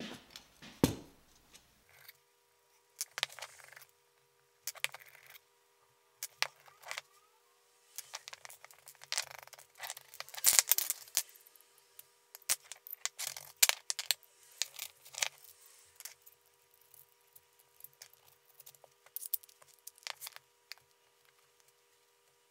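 Small metal parts of a copper-and-stainless-steel mini grill clinking and rattling as they are handled on a wooden workbench: steel rods, copper tube and small nuts. The sounds come as irregular bursts of clicks and jingles, over a faint steady hum.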